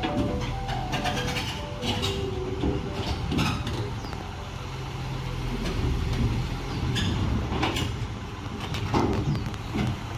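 Radio-controlled model excavator running as it travels over rough ground: a steady low motor hum with scattered clicks and knocks.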